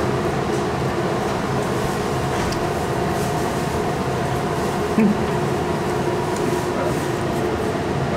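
Steady mechanical drone with a few faint humming tones, with a short knock about five seconds in.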